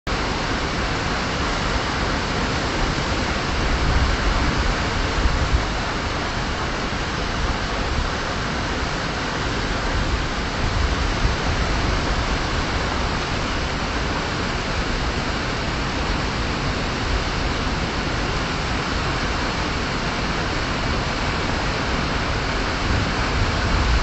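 Pistyll Rhaeadr waterfall: a steady rush of water falling and crashing into the pool below, with a deep rumble underneath.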